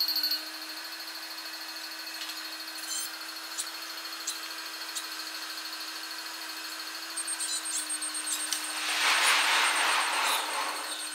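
Sixfold sped-up trackside sound. A rapid pulsing level-crossing bell cuts off just after the start, leaving a steady high hum with scattered clicks. Then a Tokyu Oimachi Line train passes as a short rushing swell, about nine to ten and a half seconds in.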